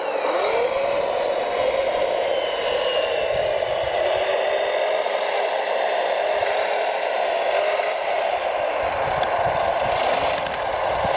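Electric motors of radio-controlled construction machines whirring steadily, with whines that slide up and down in pitch as they speed up and slow down. A few sharp clicks near the end.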